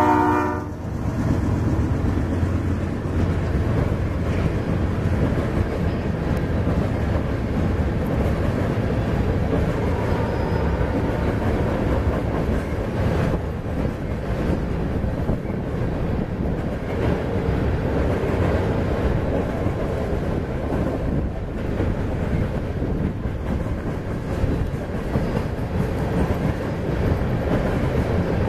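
The tail of a train horn blast dies away in the first second. Then a long freight train of tank cars rolls steadily past on a steel truss bridge, with the continuous rumble and clatter of its steel wheels on the rails.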